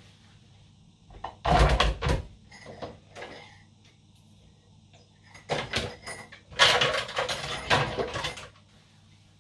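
Dishes being washed by hand at a kitchen sink: two spells of clattering, a short one about a second and a half in and a longer one from about five and a half to eight and a half seconds.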